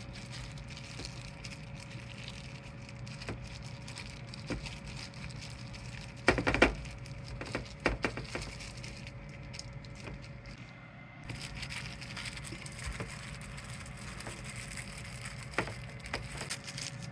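Kitchen handling sounds while meat is prepared: scattered clicks and knocks of utensils and dishes, with a loud cluster about six seconds in and another about eight seconds in, over a steady hum.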